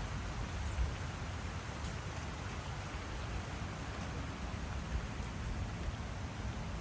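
Steady rain falling in a thunderstorm: a constant hiss of drops with a low rumble underneath.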